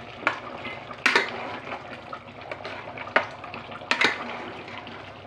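A metal ladle knocking against a metal cooking pot and bowl a handful of times, with liquid sloshing, as gravy is scooped out of a pot of meat curry.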